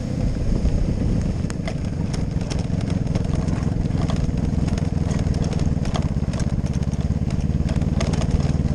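Motorcycle engine running steadily while riding down a wet, stony dirt road, with scattered sharp clicks over the engine sound.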